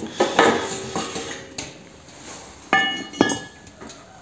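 Steel wood-burning stove body knocked by metal parts: three sharp metallic clanks, the last two close together near the end, each ringing briefly.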